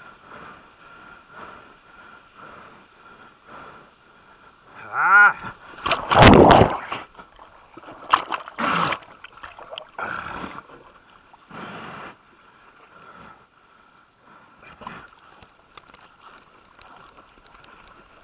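A man's odd vocal noises while surfing a longboard: a voiced grunt rising in pitch about five seconds in, then loud breathy bursts and water splashing, with further shorter huffs and splashes later.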